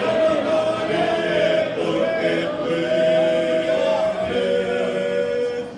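A congregation singing a Spanish worship song together, many voices holding long sung notes over instrumental accompaniment.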